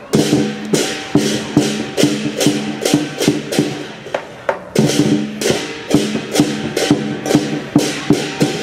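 Lion dance percussion band playing: drum beats with clashing cymbals and a ringing gong in a steady, driving rhythm.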